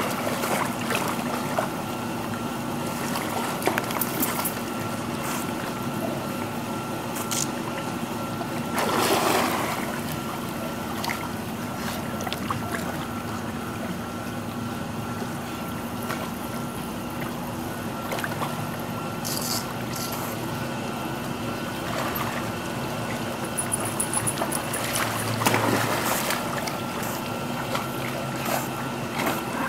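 Pool water splashing and sloshing as dogs swim and wade through it, over a steady faint hum. The splashing swells louder about a third of the way in and again near the end.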